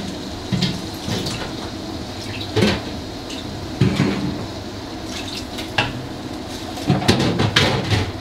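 A metal cooking utensil knocking and scraping against a pot in irregular strokes, with a cluster of knocks near the end, over a steady background hiss.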